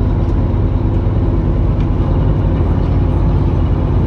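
Tour boat's engine running steadily underway: a loud, even low rumble with a steady hum.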